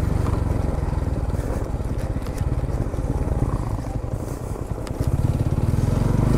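Motorcycle engine running at low revs on a rough off-road trail, heard from a helmet-mounted camera. It eases off in the middle and picks up again about five seconds in, with a few sharp knocks along the way.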